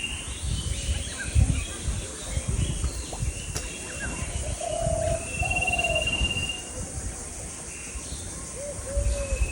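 Birds calling: a long, high, steady whistled note that comes back every few seconds, with short low cooing notes in between. An uneven low rumble runs underneath.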